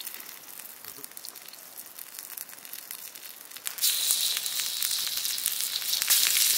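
Wood fire crackling under a flat cooking stone; about four seconds in, raw pork pieces are thrown onto the hot stone and start sizzling loudly and steadily.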